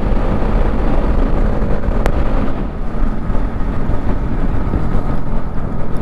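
Motorcycle on the move: steady wind rush over the camera microphone with the engine running underneath, and one sharp click about two seconds in.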